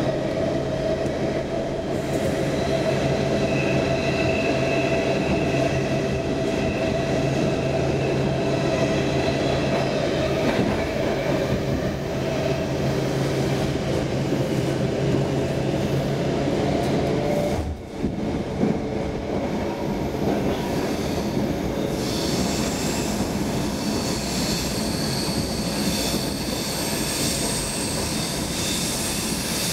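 Stockholm Metro C6 car running, heard from inside, with a steady whine of several tones that stops abruptly a little past halfway. Wheels squeal high-pitched through the last part.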